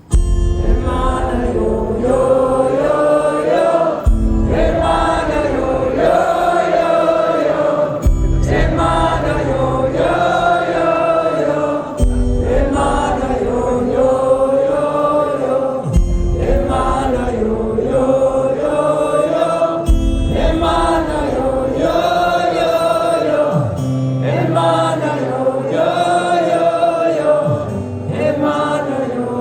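Live band music with wordless, chant-like singing over a deep bass pulse that shifts about every four seconds. The full band comes in suddenly at the very start.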